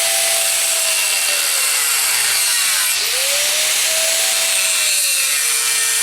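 An electric power tool cutting through wood, its motor whine sagging in pitch as it bogs under the load and picking back up, twice, over a steady rasp of the cut.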